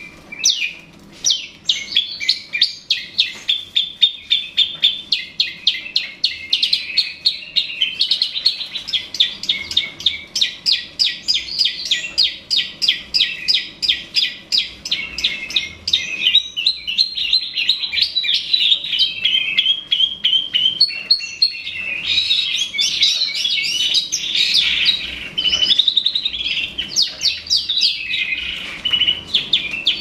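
Long-tailed shrike (cendet) singing a loud, fast chattering song of short, sharp repeated notes, several a second, changing its phrase a few times.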